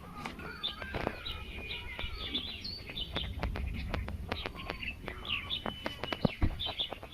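Small birds chirping and twittering continuously in short, repeated high calls, with scattered sharp clicks and a low rumble underneath.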